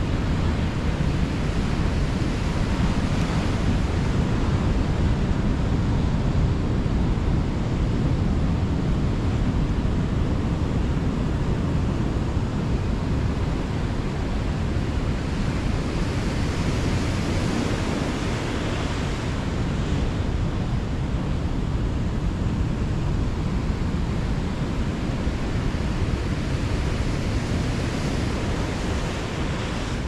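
Ocean surf breaking and washing in steadily, swelling now and then as waves come in, with wind rumbling on the microphone.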